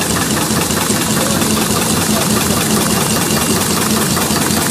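Side-seal bag making machine running steadily, a fast, even mechanical clatter over a steady hum.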